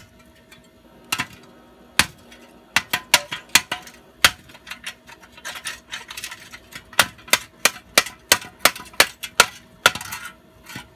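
Hammer blows on an old steel exhaust clamp: scattered knocks at first, then a steady run of about three blows a second, with some scraping of metal in between.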